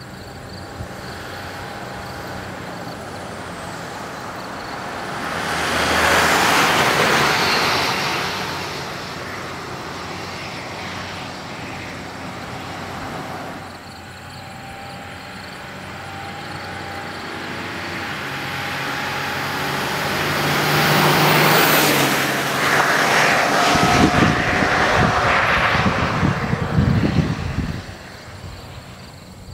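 Turbo diesel pickup with a 5.9L Cummins straight-six and a 4-inch MBRP turbo-back exhaust with the muffler deleted, driving past on the road. It swells loud about six seconds in, fades, then builds again to its loudest near the end before dropping away.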